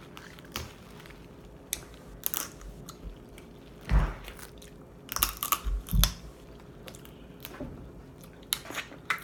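Boiled crab leg shells cracked and pulled apart by hand, with close-up chewing and mouth smacks. The cracks and smacks come irregularly, loudest about four seconds in and again around five and six seconds.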